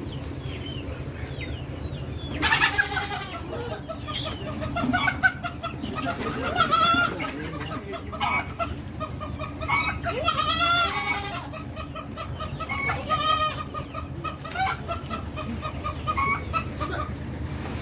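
Chickens clucking and calling over and over, with a few louder, longer calls among them.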